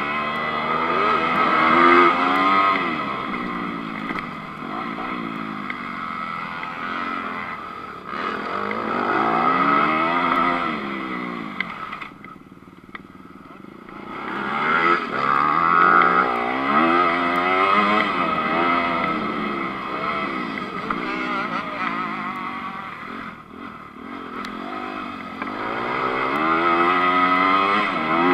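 2019 Honda CRF250 four-stroke single-cylinder motocross engine, heard from the bike itself, revving up and down repeatedly as the rider accelerates, shifts and rolls off the throttle. It drops away for about two seconds around twelve seconds in, and briefly again near twenty-four seconds.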